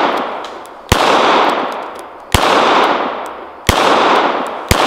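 Kimber K6s 2-inch-barrel revolver firing 158-grain lead .38 Special rounds: four single shots, about a second and a half apart with the last one coming a little sooner, each followed by a long fading echo.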